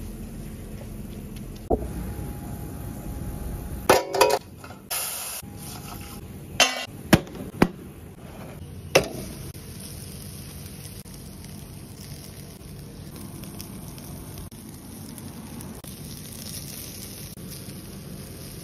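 Metal cooking gear on a charcoal barbecue clinking and clanking, about eight sharp knocks with brief ringing in the first half, then a steady hiss with no more knocks.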